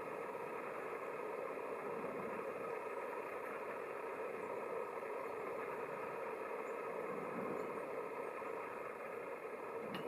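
A steady mechanical drone, like a motor running, holding level without change.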